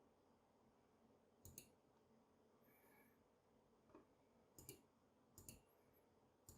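Individual key presses on a HyperX Alloy Origins Core mechanical keyboard with HyperX mechanical switches: four or five separate faint keystrokes about a second apart, each a quick double click.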